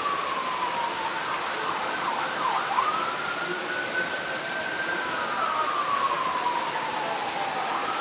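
A siren wailing, its pitch sliding slowly down, then up and holding, then down again near the end, over a steady background hiss.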